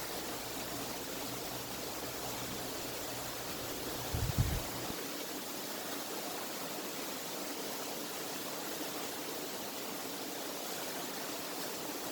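Steady rushing water of a mountain stream or waterfall, with a brief low thump about four seconds in.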